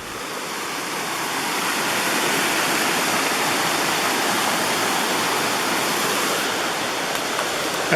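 A fast-running stream in high water, rushing and splashing over rocks in a steady roar.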